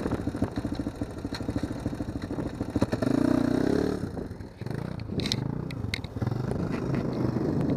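ATV (quad) engine idling with a fast, even putter, then revving up about three seconds in and running under throttle, with a few sharp clicks and clatter midway.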